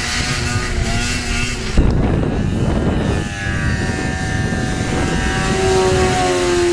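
Snowmobile engines running, with a sudden loud thump about two seconds in, then a steady engine drone that strengthens toward the end.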